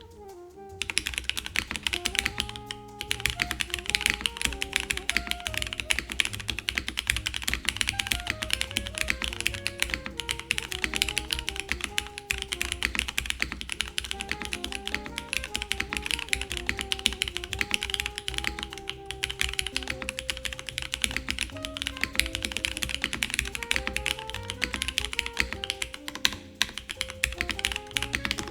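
Fast, continuous typing on an Ayleen 冬 custom mechanical keyboard with Cherry HG Black linear switches, GMK Iceberg keycaps, a full PC plate, top mount and no foam: rapid keystroke clacks starting about a second in, with a brief pause near the start. Soft background music plays underneath.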